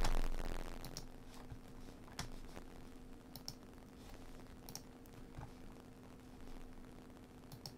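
Scattered single clicks of a computer mouse, about a dozen spread unevenly, over a steady low electrical hum, with a soft low thump at the very start.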